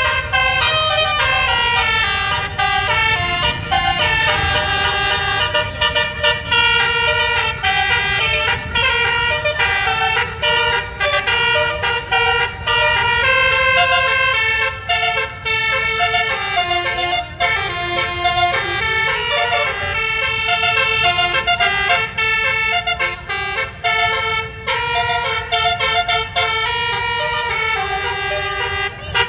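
Basuri musical horns on tourist buses playing a melody. Sustained, brassy notes step up and down in pitch, with several horn tones sounding together over a low rumble.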